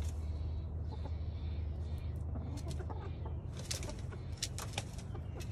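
Backyard hens clucking softly in a nest box, with a few scratchy clicks near the end as they shift on the straw and the plastic crate, over a steady low hum.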